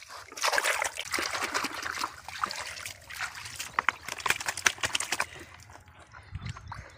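Water splashing and trickling: a busy run of small splashes that dies down after about five seconds.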